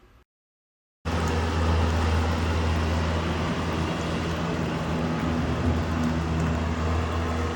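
Large vehicle engine running steadily with a deep, even hum, cutting in abruptly about a second in after a moment of silence.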